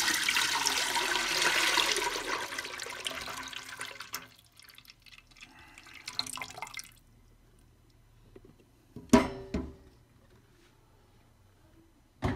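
Thick blended soup base pouring from a blender jar into a stainless steel stockpot, a rushing splash that tapers off and stops about seven seconds in. About nine seconds in comes a single sharp knock.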